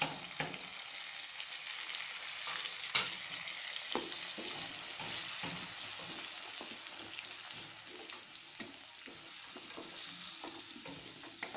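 Shallots, coconut pieces and freshly added spice powders sizzling in hot oil in a pan, stirred with a wooden spatula that clacks and scrapes against the pan again and again. The masala is being roasted before it is ground into a paste.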